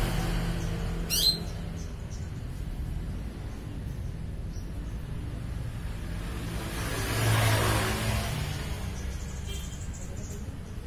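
Outdoor background: a bird chirps once about a second in, over a steady low hum, and a vehicle passes by, swelling and fading about two thirds of the way through.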